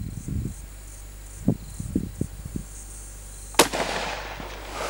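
A single shot from a Howa 1500 Mini Action rifle in .223 Remington about three and a half seconds in: one sharp crack followed by about a second of echo dying away. A few low bumps come before it.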